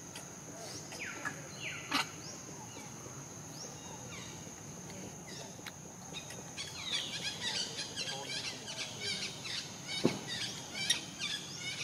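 Birds chirping over a steady high-pitched insect drone. The birdsong grows busy about seven seconds in, and a couple of sharp clicks stand out.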